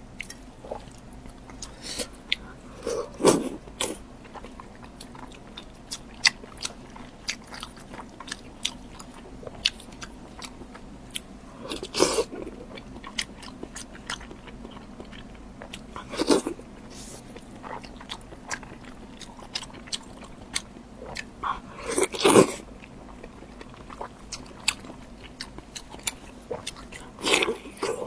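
Close-miked eating: biting and chewing with many sharp mouth clicks, and a louder burst of biting every four to six seconds.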